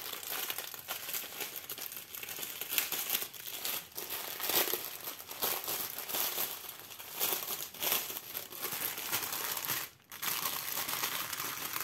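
Plastic packaging crinkling and rustling as it is handled, with many sharp crackles and a brief lull about ten seconds in.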